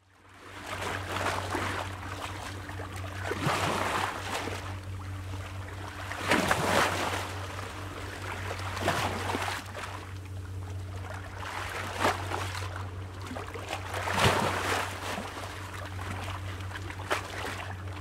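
Small waves lapping and splashing against the water's edge, surging every two to three seconds over a steady low hum. The sound fades in at the start and fades out near the end.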